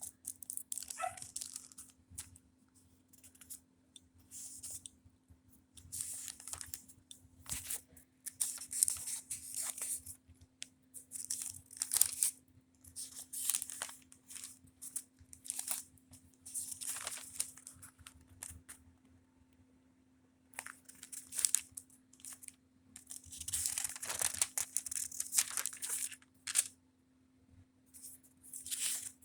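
Paper rustling in repeated short bursts as thin book pages are handled and turned, with a faint steady hum underneath.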